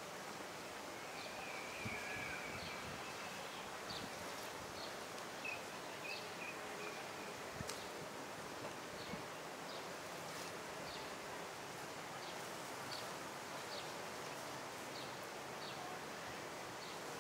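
Outdoor ambience: a steady background hiss with short high bird chirps repeating about once a second, and two longer bird calls in the first half.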